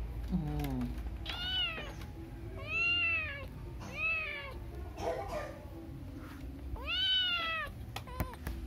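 Kitten meowing four times: short, high meows that rise and fall in pitch, with longer gaps between the last two.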